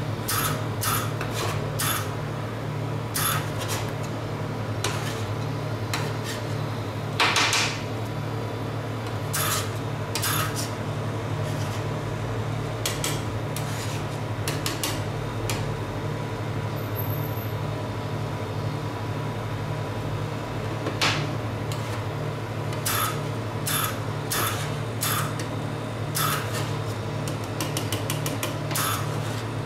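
Steel spatula tapping and scraping on a stainless-steel ice cream roll cold plate, chopping a freezing tea-and-cream mix, in irregular sharp clacks with a quieter stretch in the middle. A steady low machine hum runs underneath.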